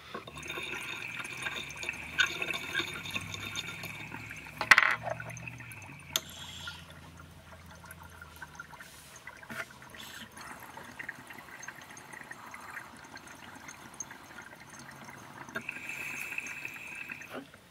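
Water bubbling through a glass dab rig's percolator as a hit is drawn through the mouthpiece, with a steady thin whistle over it. The bubbling fades in the middle and picks up again near the end, and a sharp click about five seconds in is the loudest sound.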